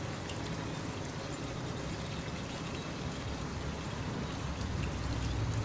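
Wind blowing across the microphone: a steady hiss, with low buffeting rumble that grows stronger near the end.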